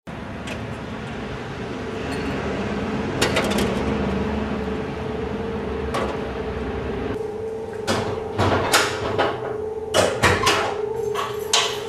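A door being handled, with sharp knocks and rattles: one a few seconds in, another halfway, then several in quick succession near the end, over a steady hum.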